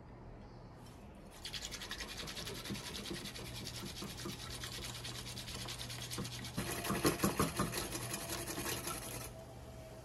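A metal wire whisk beating whey protein powder into hot tea in a ceramic mug, frothing the drink. The rapid, even scraping strokes start about a second in, get louder past the halfway point, and stop shortly before the end.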